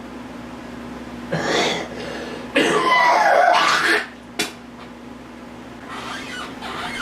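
A man coughing: a short cough about a second in, then a longer, louder, throaty cough, followed by a single sharp click.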